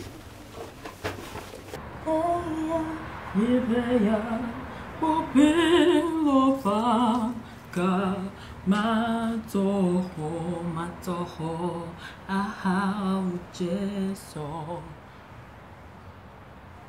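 A woman singing alone without accompaniment, in short phrases with a wavering vibrato. She starts about two seconds in and stops shortly before the end.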